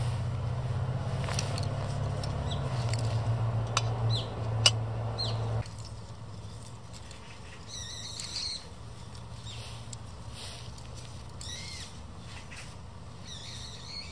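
Small clicks and knocks of a backpacking gas stove being handled and screwed onto a butane gas canister, over a low steady drone that cuts off suddenly about halfway through. After that come a few short bird calls.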